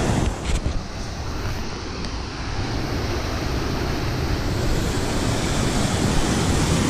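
Steady rush of river water pouring over a small waterfall and rapids into a rock pool, growing a little louder from about two seconds in.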